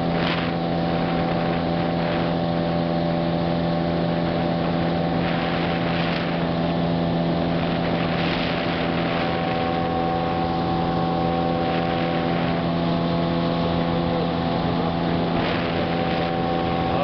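Motorboat engine running at a steady speed, with water rush and wind on the microphone and a few short gusts.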